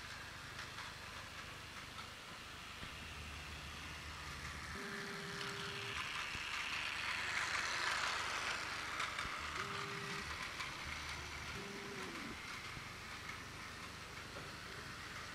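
Plarail toy train's small battery motor whirring as it runs along plastic track. It grows louder as the train comes close, loudest about eight seconds in, then eases off.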